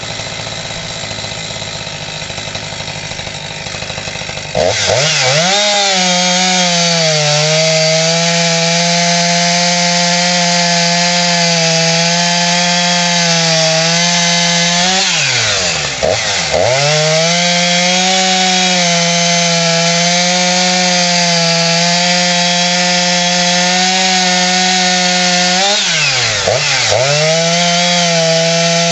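Husqvarna 346 XP two-stroke chainsaw idling, then opened up to full throttle about four and a half seconds in. It runs at a steady high speed, and twice, just past the middle and near the end, its pitch drops sharply and then recovers.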